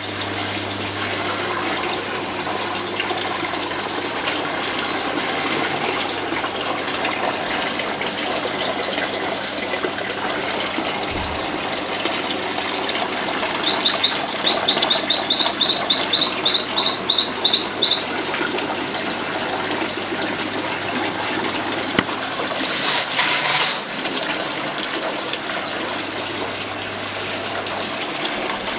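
Water pouring steadily from a pipe into a plastic tadpole tub of a water-circulating rearing system, over a low steady hum. A little past the middle, a run of about a dozen quick high chirps, some three a second, and about three-quarters through, a brief louder rush of noise.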